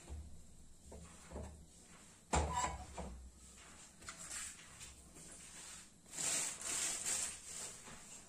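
Iron kadhai knocked and set down on a gas stove grate: a few soft knocks, then one sharp metallic clank about two seconds in, followed near the end by a brief rushing noise.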